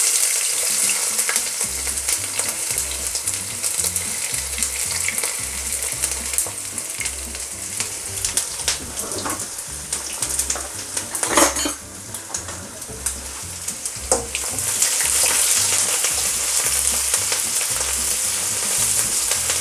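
Sliced green chilies, ginger and garlic sizzling as they fry in hot oil and ghee in a non-stick wok, stirred by hand. A few short, sharp stirring sounds come in the middle, and the sizzle grows louder about three-quarters of the way through.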